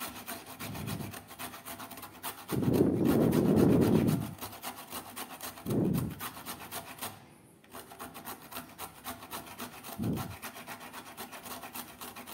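A carrot grated finely on a hand grater: rapid, steady rasping strokes, pausing briefly about seven seconds in. A louder low rumble lasts about a second and a half around three seconds in, with shorter low bumps near six and ten seconds.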